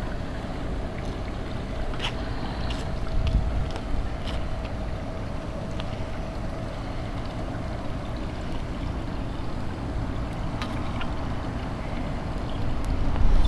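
Wind rumbling on the microphone over a steady low background noise, with a faint hum and a few light clicks and taps from the pool vacuum pole being worked.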